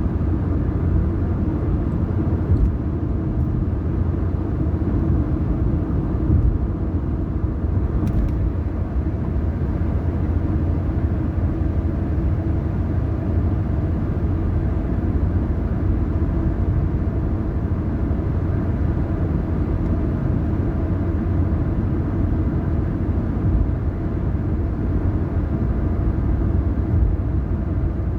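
Car driving at a steady speed: a steady low rumble of engine and tyre noise.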